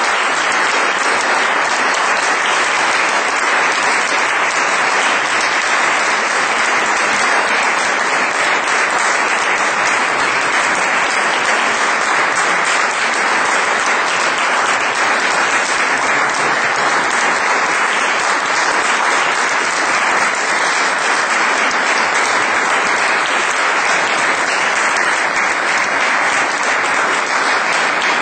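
Audience applauding, a dense and steady clapping that holds throughout.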